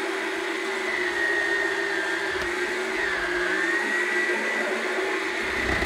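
Yonanas Classic frozen-treat maker's electric motor running with a steady whine while frozen fruit is pressed down the chute with the plunger onto the spinning blade. Its pitch sags briefly about three seconds in as the blade takes the load.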